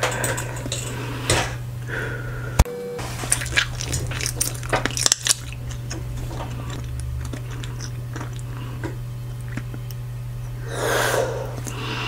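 Bubble gum chewed close to a microphone: a sharp pop about two and a half seconds in as a large bubble bursts, then a run of wet smacking and clicking as the gum is chewed. Near the end a breathy blow as the next bubble is inflated. A steady low hum runs underneath.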